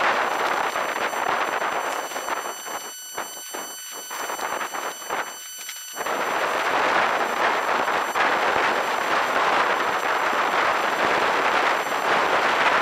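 Wind buffeting the microphone: a rough, crackling rush that eases about two seconds in, leaving scattered pops, then comes back strongly about six seconds in.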